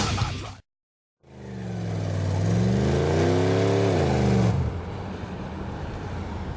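Heavy rock music cuts off, followed by a short moment of dead silence. Then a vehicle engine comes in, its pitch dipping, climbing and then falling sharply before it fades to a low background level about four and a half seconds in.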